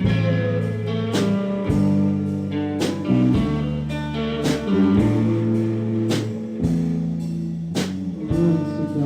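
A band playing an instrumental passage, with held guitar chords that change every second or so and sharp drum hits at an uneven spacing. There is no singing.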